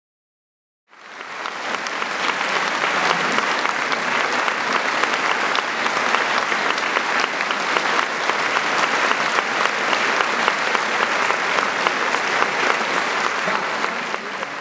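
Large audience applauding, many hands clapping in a dense, steady patter that starts about a second in and begins to die down near the end.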